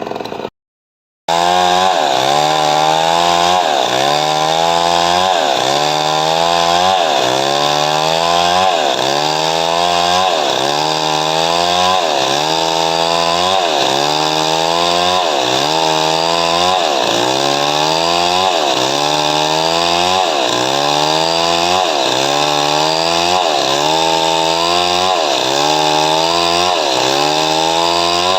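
Chainsaw cutting coconut wood, its engine pitch dipping under load and recovering at a steady pace, a little under once a second. The sound drops out briefly about half a second in.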